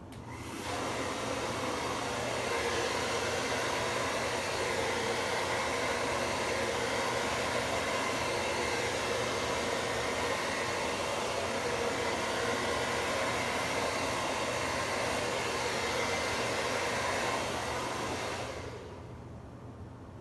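Hair dryer blowing steadily, switching on right at the start and cutting off near the end.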